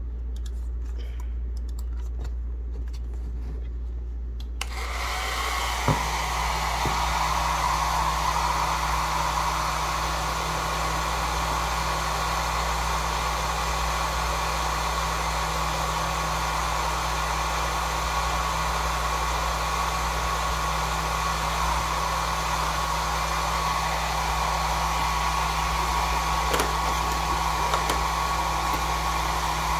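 Britânia Travel 1200 W hair dryer switched on after a few seconds of faint handling ticks, then blowing steadily with a steady whine.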